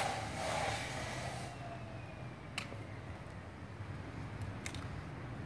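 Bonsai pruning shears snipping small branches: a few short sharp clicks, one at the start, one about two and a half seconds in and a quick pair near the end, over a low steady background hum.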